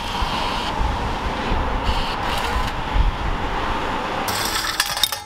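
Car-wash change machine taking a banknote: a steady mechanical whirr, then coins clattering down into its metal change cup in the last second.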